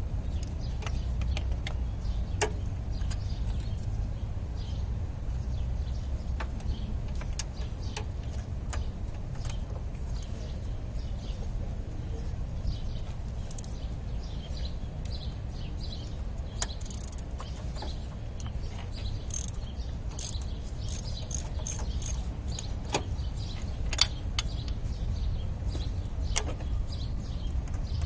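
Outdoor background with a steady low rumble, broken by a few sharp metallic clicks and clinks of hand tools working on the engine and by birds chirping, most of the chirps in the middle of the stretch.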